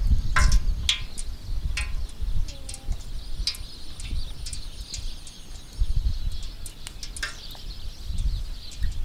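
Light clicks and taps from fish being laid and pressed into flour in a metal tray, over a steady low rumble of wind on the microphone.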